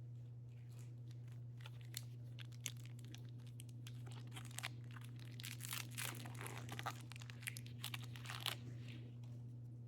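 A Topps baseball card pack's wrapper being torn open and crinkled: a run of short rips and crackles that gets busier toward the end, over a steady low hum.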